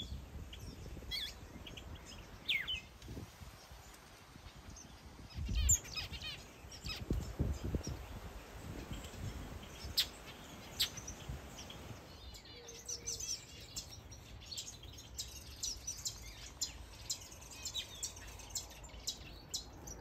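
Mixed aviary birds, finches and softbills, chirping and calling: scattered short, high chirps that grow much busier in the second half. A few low thumps sound a few seconds in.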